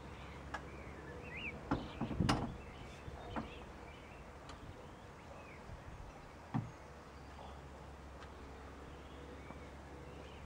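Thule towbar bike carrier knocking and clunking as it is set onto a car's tow ball and fixed in place: a cluster of knocks about two seconds in, another near three and a half seconds and one sharp knock past six seconds. Birds chirp throughout.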